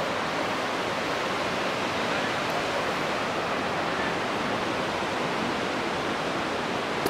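Steady rush of the Capilano River's white water running over rocks in the canyon below.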